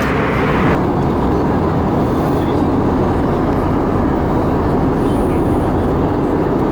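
Steady roar of an Airbus A320 in flight heard from inside the passenger cabin: engine and airflow noise. A brighter hiss on top of it cuts off suddenly less than a second in.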